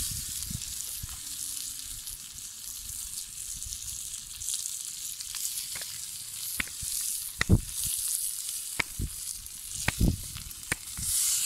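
Chicken pieces sizzling as they fry on a hot stone slab over a wood fire, turned with metal tongs. A few sharp clicks sound in the second half.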